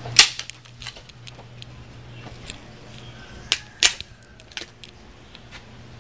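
Freshly lit kindling fire in a masonry wood stove crackling with irregular small ticks and a few sharp pops: one just after the start and two close together about four seconds in.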